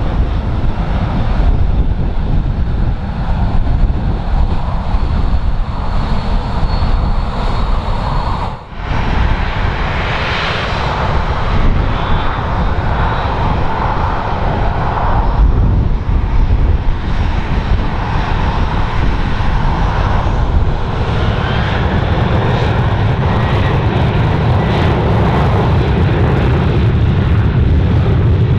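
Boeing 737-800 jet engines running with a faint high whine, heard under heavy wind buffeting on the microphone. There is a momentary break about nine seconds in where the recording cuts to a second 737-800.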